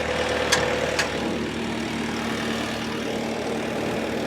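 2017 Bobcat T595 skid steer's four-cylinder turbocharged Bobcat D24 diesel engine idling steadily and running smooth, with two short clicks about half a second and a second in.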